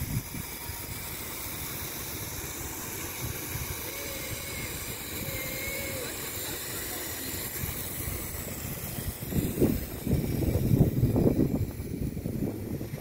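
Wind buffeting the microphone over a steady hiss of lawn sprinkler spray, with the wind gusting louder for a few seconds about nine seconds in.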